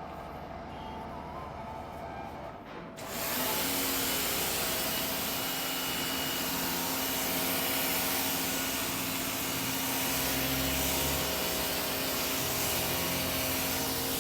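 Bosch Aquatak 130 electric pressure washer starting up about three seconds in and running steadily, its motor hum under the loud hiss of the foam cannon spraying.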